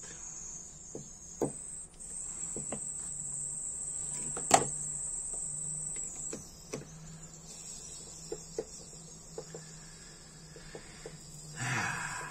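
Small metallic clicks and taps as tweezers and a screwdriver work on the tiny parts of a Dupont lighter, with one sharper click about halfway through. A steady high-pitched whine runs underneath.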